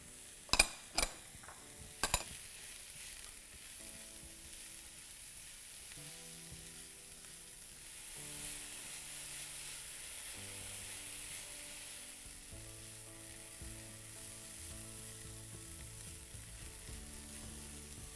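Diced vegetables (celery, carrot, mushrooms, spring onion) sizzling steadily in a non-stick frying pan as they are stirred with a spatula. There are three sharp knocks within the first two seconds or so.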